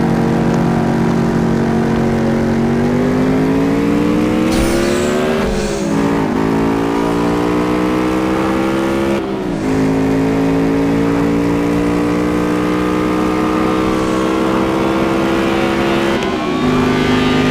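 Car engine accelerating hard. It holds a steady pitch for about two seconds, then climbs, with three sudden drops in pitch as it shifts up through the gears.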